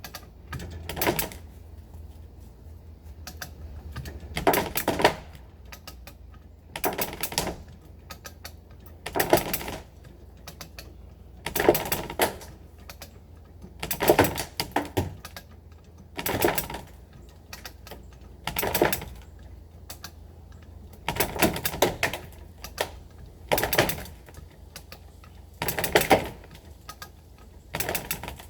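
Come-along being ratcheted: each pump of the handle gives a quick run of pawl clicks, about one stroke every two and a half seconds, around a dozen strokes in all.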